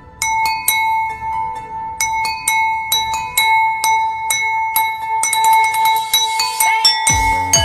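Music: a tune of quick, ringing, bell-like struck notes over a held high tone, with a low pulsing beat coming in near the end.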